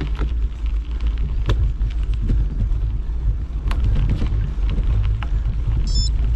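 Mountain bike riding down a dirt trail: steady wind rumble on the microphone and tyre noise, with a few sharp knocks and rattles from bumps in the trail. A brief high squeak comes near the end.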